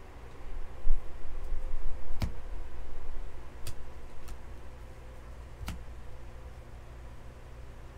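A stack of baseball trading cards being flipped through by hand, with a few sharp clicks as cards snap against the stack. A low steady hum runs underneath.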